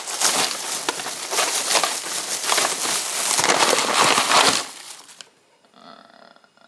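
A bag crinkling loudly as it is handled and opened for about four and a half seconds, then dropping to a faint background.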